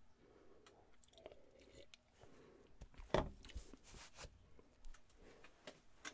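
Quiet handling sounds: a drink taken from a glass, then a few soft knocks and rustles as a baseball cap is put on and adjusted. The sharpest knock comes about three seconds in.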